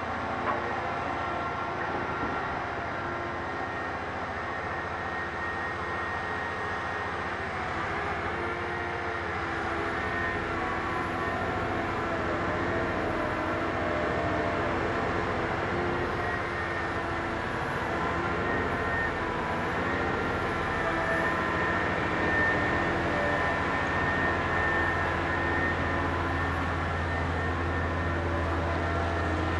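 Liebherr HS 8300 HD hybrid dragline running steadily while its upper structure swings, a continuous machine drone of engine and drives. A faint high whine wavering in pitch joins about a quarter of the way in, and the low hum grows a little louder near the end.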